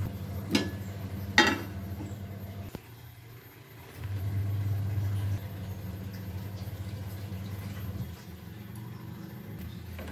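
A motor hums steadily, swelling louder for about a second around the middle, with two short clatters in the first two seconds.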